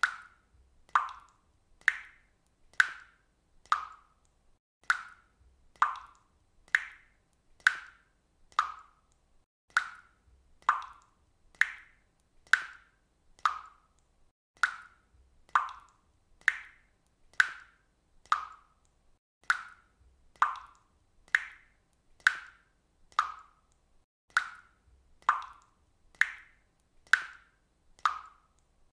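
Water dripping from a faucet in a steady rhythm, about one drop a second, each landing as a short plop.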